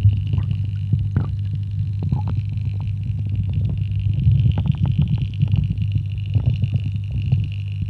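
Muffled underwater rumble of a garden fish pond churned by its waterfall, with many small crackles and clicks and a faint steady high hum, as heard by a submerged camera.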